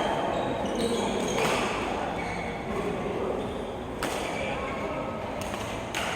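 Billiard balls clicking sharply against each other and a cue, a few separate knocks over several seconds, under background chatter in a hall.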